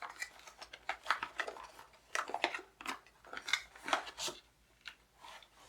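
Packaging being handled while a power adapter is taken out of a box: irregular rustles and small clicks and knocks, quieter near the end.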